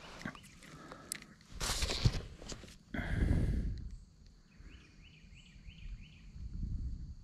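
Rustling and bumps from a kayak angler handling his spinning rod and reel, loudest twice in the first half. In the second half, a series of faint high chirps repeats about three times a second.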